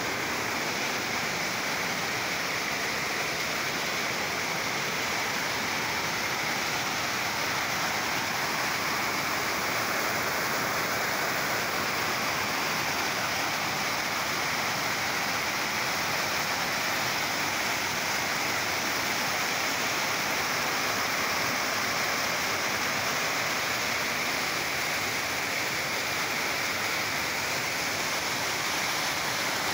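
Whitewater rapids of a swollen river rushing over rock ledges: a steady, even rush of water that does not change. The river is running high and swift after heavy rain.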